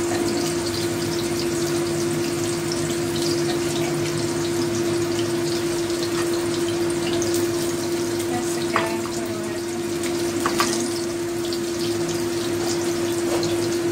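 Minced-fish patties frying in oil in a nonstick pan: a steady sizzle with a few small pops, over a constant low hum.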